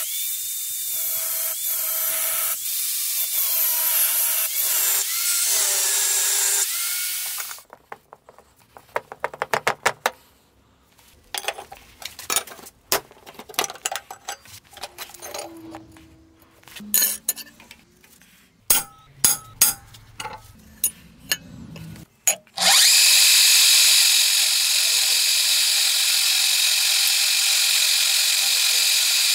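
A power tool running with its pitch gliding up and down for several seconds, then a stretch of sharp clicks and knocks from hand work and handling parts, then a power tool running steadily again from near the end.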